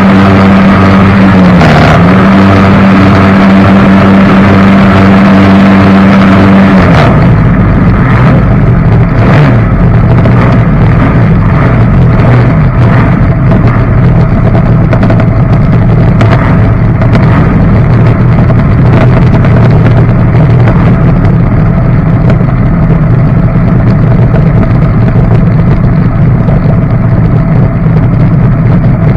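Jet boat engine running loud and steady under way, with a brief dip in pitch about two seconds in. Around seven seconds in its pitch drops sharply, and it carries on lower and rougher with scattered knocks.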